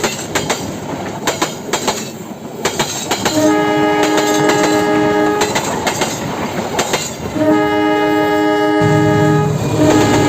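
Train horn sounding in long blasts of about two seconds each, two in the middle and a third starting near the end, over a running clatter of wheel clicks on the rail joints. A low hum comes in near the end.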